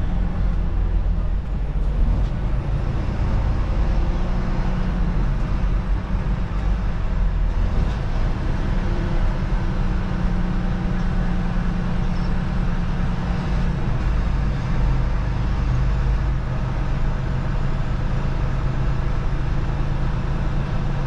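Steady low drone of a truck's engine and road noise while driving, with the engine note dropping slightly about fourteen seconds in.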